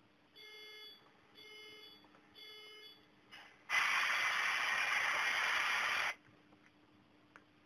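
Sound decoder of a model BNSF diesel locomotive playing three short electronic beeps about a second apart, then a loud hiss lasting a little over two seconds: the start of its start-up sound sequence, before the engine sound comes in.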